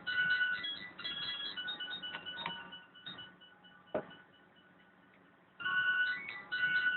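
Thin electronic tune of held, stepping notes that breaks off about three seconds in and starts again near the end. A single sharp click about four seconds in.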